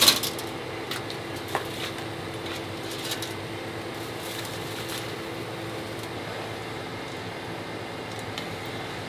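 Steady mechanical hum of a kitchen ventilation fan over a large pot of glass noodles cooking. A sharp metal clatter comes right at the start, and a couple of light clinks of utensils follow in the first few seconds.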